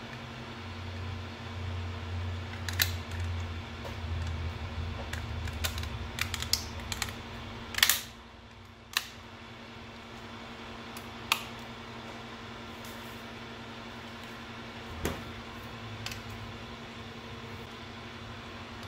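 Hard plastic clicks and knocks as the overhead display's black plastic housing pieces are handled and fitted together: a busy run of sharp clicks over the first several seconds, the loudest about eight seconds in, then a few single clicks spaced out. A steady low hum runs underneath.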